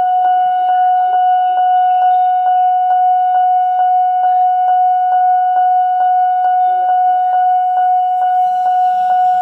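Railway level-crossing warning alarm sounding: one steady high tone, struck through by a click a little over twice a second. A faint hiss joins in near the end.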